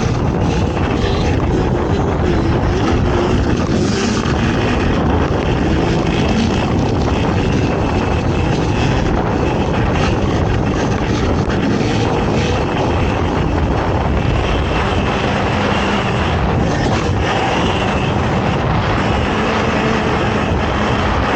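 Off-road ATV engine running hard at race pace, its pitch rising and falling with the throttle over a steady rush of noise.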